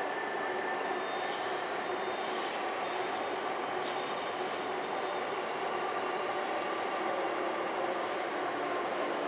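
Electric commuter train running past, its wheels squealing in short high-pitched bursts several times over a steady running noise, mostly between about one and four seconds in and again near the end.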